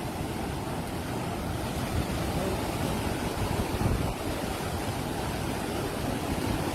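Swollen floodwater of a river rushing steadily, a dense low rushing noise without a break.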